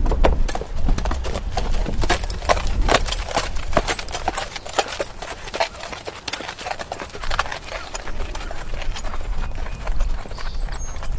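A horse walking, its hooves striking the ground in a steady stream of clip-clops at an uneven pace.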